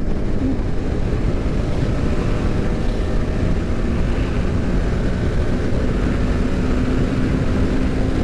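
TVS Apache RR 310's single-cylinder engine running steadily at highway speed, mixed with wind rush and road noise; a steady engine note stands out more clearly near the end.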